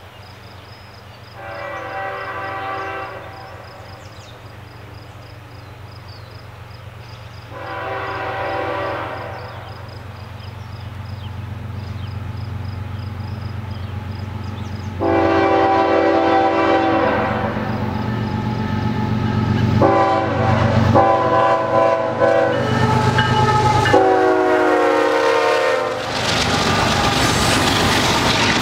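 Approaching diesel freight train led by a GE ES44AC locomotive sounding its air horn in a series of blasts for a grade crossing, each louder than the last as it nears. The deep engine rumble swells underneath, and near the end the lead locomotives pass close with heavy engine and wheel noise.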